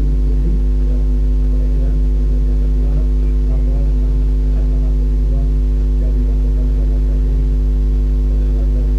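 Loud, steady electrical mains hum: a low drone with several steady overtones that does not change, with faint, muffled speech barely showing beneath it.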